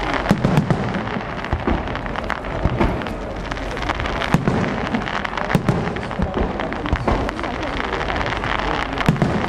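Aerial firework shells bursting overhead in a dense, irregular run of sharp bangs and pops.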